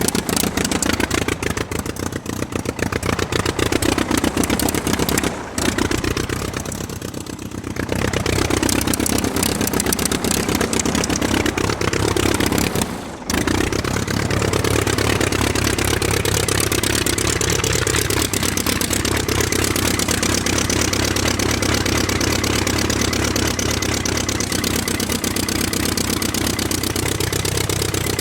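Aircraft engine running, its pitch rising and falling as the revs change. It dips quieter for a couple of seconds about six seconds in and drops out briefly twice.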